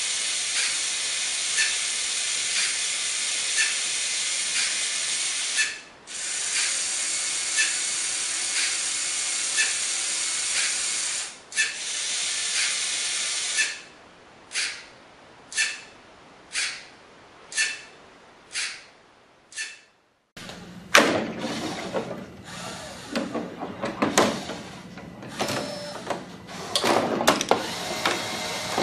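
Motors and gear trains of a LEGO rotating-block digit display running with a steady hiss and a faint tick about once a second. The hiss breaks off twice, then comes in short bursts about once a second. After a brief gap, a LEGO pinball machine: a steady motor hum under sharp clacks and rattles from its flippers and ball.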